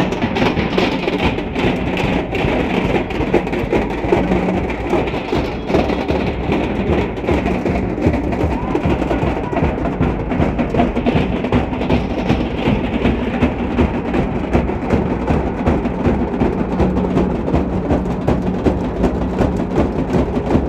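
Large barrel drums of a Muharram procession band beaten together in a fast, steady, unbroken rhythm.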